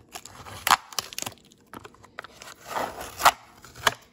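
Plastic packing and cardboard crinkling and rustling as a blister-carded Hot Wheels car is pulled out of a shipping box, with several sharp crackles, the loudest about three seconds in.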